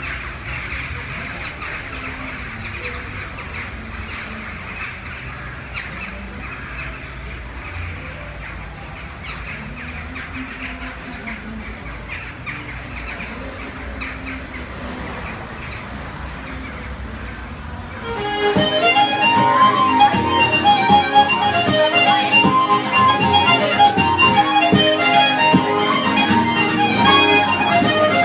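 A large flock of crows calling all at once in a steady din over a low rumble. About two-thirds of the way through, it cuts suddenly to louder traditional Irish music on accordion and guitar.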